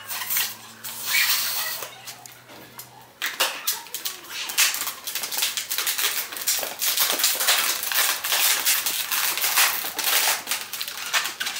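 For about the first three seconds there is a steady rush of air as a clear plastic balloon is blown into. Then comes dense, irregular crinkling and crackling as the clear plastic is twisted and crumpled by hand.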